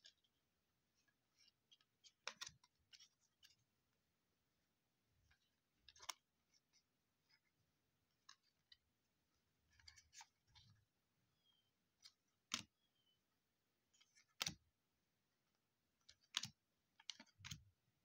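Faint, scattered clicks and light rustling, with sharp ticks every second or few at uneven intervals, as baseball trading cards are handled and flicked through one by one.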